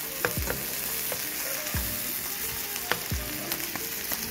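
King fish (surmai) steaks shallow-frying in oil in a non-stick pan, a steady sizzle. A metal spatula clicks and scrapes against the pan a handful of times as the pieces are moved and turned.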